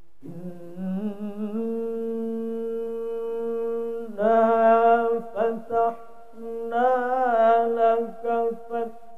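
A man reciting the Quran in a melodic chanted style: one note held steady for about four seconds, then two runs of ornamented phrases with a wavering pitch, broken by a short pause around the middle.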